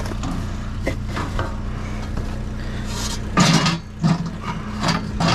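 Scrap metal being pulled out of a dumpster: clinks and clanks that grow louder and busier near the end, as an aluminum pot is freed. Under it a vehicle engine hums steadily at idle.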